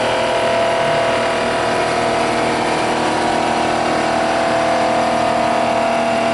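Rottler S85A surfacing machine running steadily as its cutter mills across an aluminum cylinder head, giving an even hum with a steady whining tone. The cut is a little deeper than needed.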